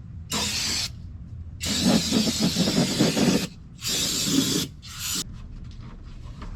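Aerosol spray can hissing in four bursts, the longest nearly two seconds and the last very short.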